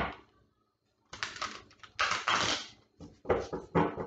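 Deck of tarot cards being shuffled by hand: about five short bursts of rapid card-on-card rustling.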